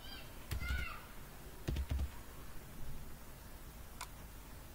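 A few scattered clicks of a computer keyboard and mouse, with dull low knocks on the desk. Short wavering high-pitched chirps sound right at the start and again just under a second in.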